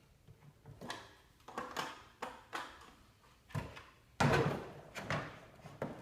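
Irregular knocks, clunks and scrapes of a snow thrower's handle tube sections being slid together and shifted to line up their bolt holes, with the loudest clunk a little past four seconds in.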